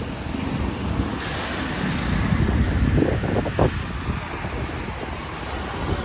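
Traffic passing on a multi-lane highway, a steady rush of tyre and engine noise, with wind buffeting the microphone.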